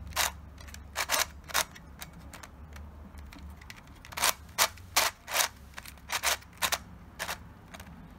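A 3D-printed black PLA Tetrahexaminx twisty puzzle being turned by hand on its threefold axes: sharp plastic clicks as the layers turn, in quick groups with a pause of about two seconds near the middle.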